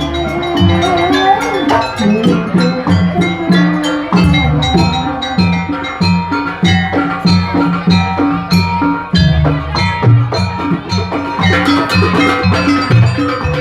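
Jaranan dance music: a Javanese-style percussion ensemble of drums and tuned gongs or metallophones playing a fast, steady rhythm.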